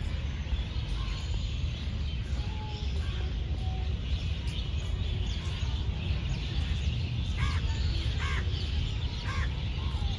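Steady low rumble on the microphone, with a bird calling three times, about a second apart, near the end.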